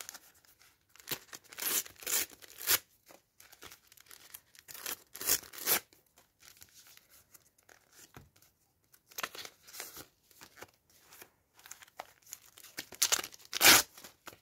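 Paper sticker packets being torn open by hand, ripping in several short bursts with crinkling of the wrappers in between. The loudest rip comes near the end.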